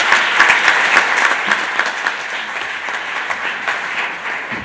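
Audience applause: a roomful of people clapping together, easing off a little toward the end.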